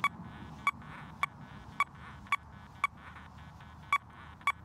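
XP Deus II metal detector giving short beeps of one pitch, about two a second, as its coil is swept back and forth over the gold-coin test target.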